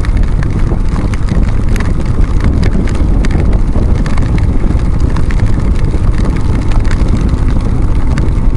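Riding in heavy rain on a BMW R1150GS: steady wind rush on the bike-mounted microphone over the low running of the motorcycle's boxer twin, with many short ticks of raindrops hitting the camera throughout.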